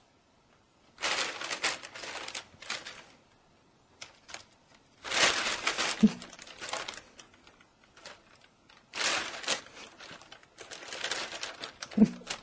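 Plastic bag crinkling and rustling in about four bursts of a few seconds each as the cat inside it moves and plays, with a short low blip about six seconds in and again near the end.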